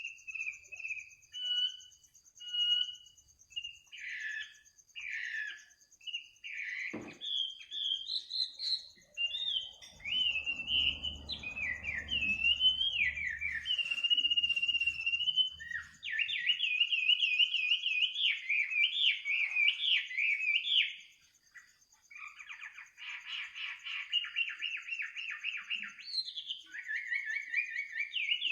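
A songbird singing a long, varied song of whistled phrases, rising and falling slurs and fast rattling trills, with a short break a little after the twentieth second. A steady high pulsing trill runs underneath throughout.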